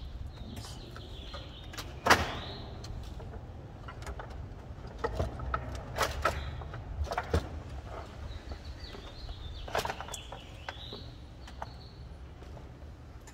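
Hard-cased Ford C-Max lithium cells knocking and clicking against each other and the bank's frame as they are handled and pushed into place. One sharp knock comes about two seconds in and a cluster of clicks around five to seven seconds, over a steady low hum, with birds chirping in the background.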